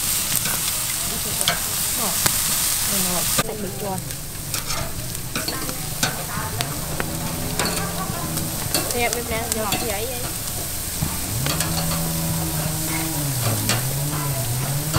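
Pork and shrimp sizzling on a charcoal grill grate, with short clicks of metal tongs on the grate as the pieces are turned. The hiss is strongest for the first three and a half seconds, then drops.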